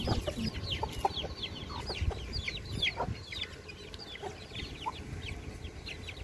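Young chicks peeping rapidly: short, high, falling peeps several times a second, with a few lower clucks from the hens and rooster mixed in as the flock pecks at scattered grain.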